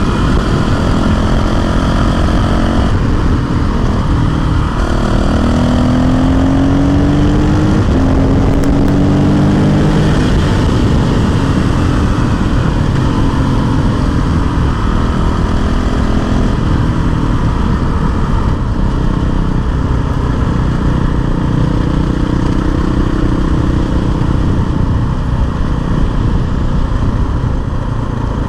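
Honda CRF450L's single-cylinder four-stroke engine pulling the bike along, its pitch climbing in steps through the gears, then holding steadier with another rise later on and easing off slightly near the end.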